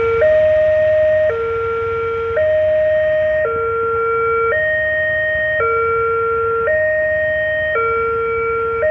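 Railway level-crossing warning alarm sounding its two-tone signal, switching between a lower and a higher tone about once a second. This is the signal that the crossing is closed for an approaching train.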